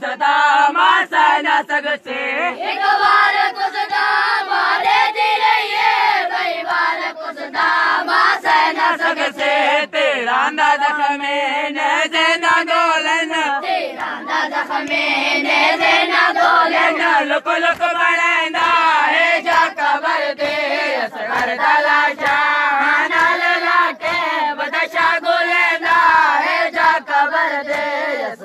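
A group of boys chanting a nauha (mourning lament) together, loud and continuous, kept in time by a steady beat of hands slapping on chests in matam.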